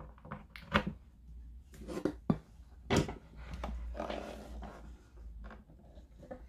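Handling noise from a plastic radio cabinet: a DC power plug pushed into its rear socket and the unit turned over by hand on a workbench, giving several short sharp clicks and knocks and some softer rubbing.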